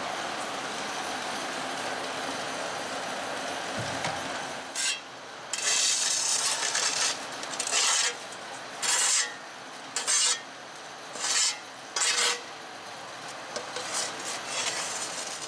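Snow being cleared by hand from the ground: one long continuous scrape, then separate scraping strokes about once a second.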